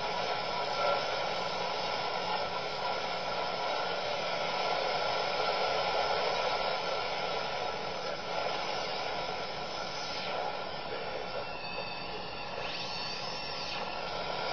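Static hiss from a Coby shortwave radio's speaker as it is tuned across an empty stretch of the band in search of a station. A few faint whistles slide up and then back down in pitch in the second half.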